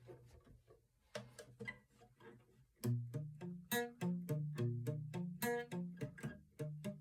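Guitar chords played palm-muted, in short choppy strokes. A few quiet picked notes come first, then about three seconds in a fast run of louder muted chords starts, several strokes a second.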